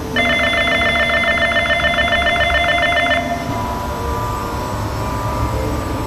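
An electric warning bell rings rapidly for about three seconds as the Okamoto Monster octopus ride starts. It then stops, and a low steady rumble with a faint whine follows as the ride's hydraulic drive begins turning the arms.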